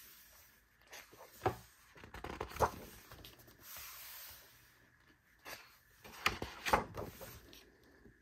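Pages of a thick glossy photobook being turned and pressed flat by hand: paper rustling, with a few sharp page flaps and a hand sweeping across a page for about a second near the middle.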